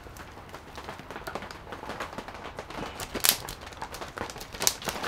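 Zip-top plastic bag rustling and crinkling as buttermilk is poured into it and the bag is handled, with small ticks throughout and two sharper crinkles about three and a half and four and a half seconds in.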